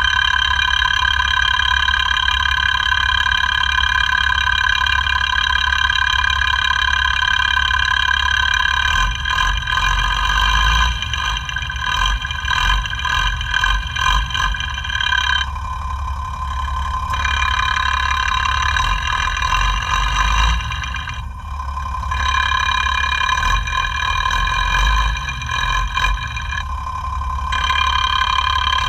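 FAW truck's 260 hp diesel engine running at idle, heard through a mechanic's electronic sound tester (stethoscope) held against the engine, with steady high tones over a pulsing low rumble. The sound changes abruptly several times as the probe is moved between points, in the hunt for a knocking noise the mechanic traces to the fuel injection pump and injectors.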